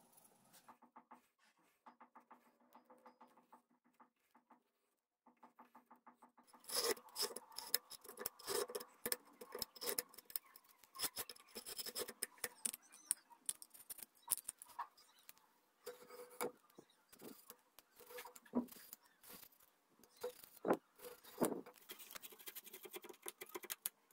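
Knife blade cutting a slot along a green bamboo tube. After a few faint seconds, a fast run of short scraping strokes and clicks begins, going on in uneven bursts.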